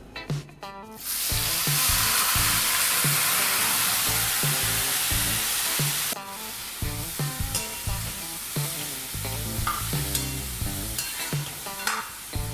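Boiled bottle gourd and chana dal hitting hot tempered oil in a kadai: a loud sizzle starting about a second in that cuts off suddenly around six seconds. After that, quieter frying and a spoon stirring and scraping the pan.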